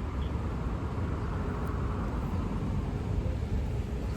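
Steady low rumble of a car heard from inside the cabin, the road and engine noise of a car on the move.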